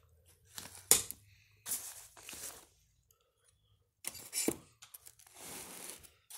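Old paper being handled: yellowed newspaper and brittle ring-binder pages rustling and crinkling in several separate bursts, with a sharp snap about a second in.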